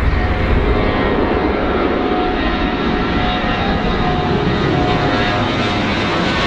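Four-engine Airbus A340 airliner climbing out overhead just after takeoff: its turbofan jet engines at takeoff power give a loud, steady rush of noise with whining tones over it.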